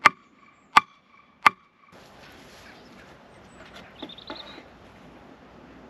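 Three sharp hammer blows about three-quarters of a second apart on a hard robinia (false acacia) box-strainer rail and post, each ringing with a clear note that shows how hard the timber is. After about two seconds there is only wind noise on the microphone and a few faint knocks.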